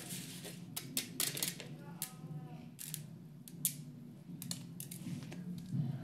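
Blue toy compound worked between the hands, squeezed and pulled apart, giving irregular crackly clicks and snaps.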